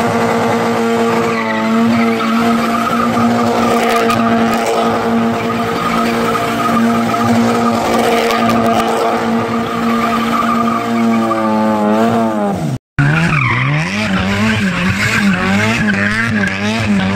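Old sedan doing donuts: the engine is held at high revs in one steady note while the tyres screech and skid on the paving. Near the end the revs drop, and after a brief gap the engine note rises and falls rapidly over and over as the throttle is worked, the tyres still skidding.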